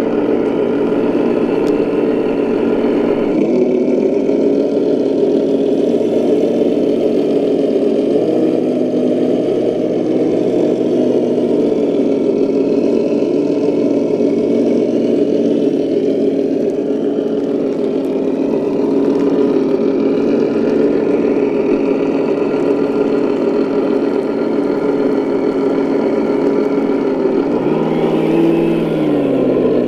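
Traxxas TRX-6 Mercedes-Benz G63 RC crawler driving at a steady pace while towing a loaded trailer: a steady droning hum from its drive, with the pitch stepping a couple of times and falling near the end as it slows.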